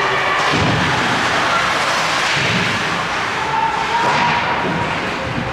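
Ice hockey game sound in a rink: a steady wash of skates scraping the ice and spectators' voices, with several low thumps.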